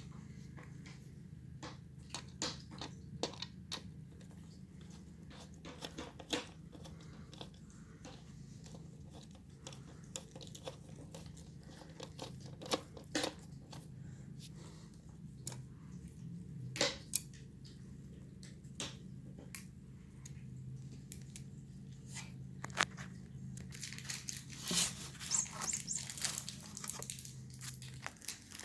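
Scattered clicks and small knocks from parts being handled, with a dense patch of crinkling or rustling near the end, over a steady low hum that cuts off shortly before the end.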